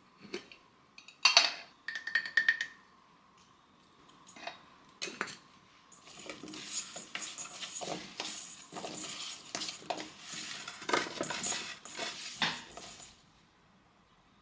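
Turnip wedges in a stainless steel bowl, rubbed and tossed with salt by hand, clattering against the metal for about seven seconds from about six seconds in. Before that come a few sharp clinks; the loudest, a little over a second in, leaves the bowl ringing briefly.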